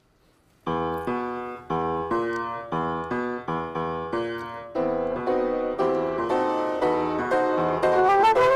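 Upright piano starting a lively, dance-like Latin piece about a second in, with chords struck in a steady rhythm about twice a second. A flute comes in with a rising line near the end.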